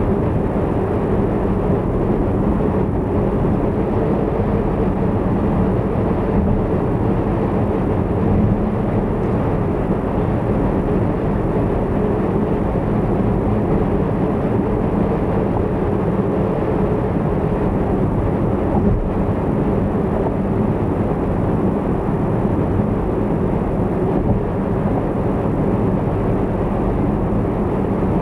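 A car driving at expressway speed: steady tyre and engine noise with a low hum, unchanging throughout.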